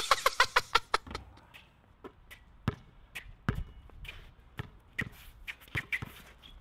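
Basketball being dribbled on an outdoor hard court, its bounces landing irregularly about once or twice a second. A quick run of sharp clicks comes before them, in the first second.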